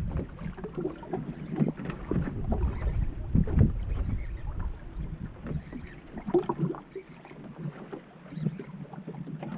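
Wind buffeting the microphone and water slapping against the hull of a small fishing boat, in uneven gusts and knocks.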